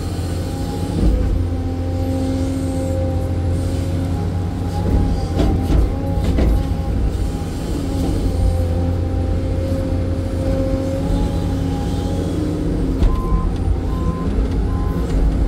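Hydraulic excavator's diesel engine running under working load with a steady hydraulic whine, heard from inside the cab. A few knocks sound a few seconds in and again near the end, and a short repeating tone starts near the end.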